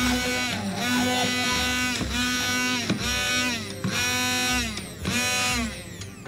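Electric stick blender whirring in a pot of soft boiled pumpkin as it purees it. The motor's pitch dips and recovers about once a second as the blade bites into the thick mash. It goes quieter near the end as the blender is lifted out.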